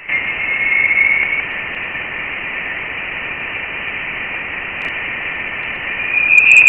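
Sonified Voyager 1 plasma wave data: a steady radio-like hiss, with a brighter whistling tone about half a second in that swells again, louder, near the end. It is not a real-time recording but an audio version of the plasma wave instrument's graph.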